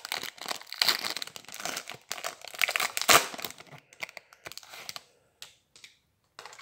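Foil wrapper of a Panini Select trading card pack being torn open and crinkled by hand, a dense crackling that is loudest in the first three seconds, then thins to a few light rustles.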